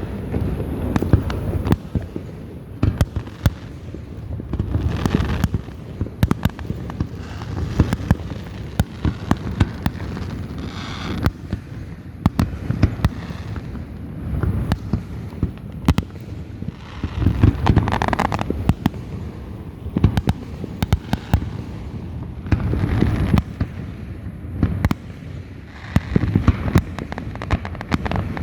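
Many fireworks going off in overlapping succession: sharp cracks and pops throughout, with rolling booms every few seconds.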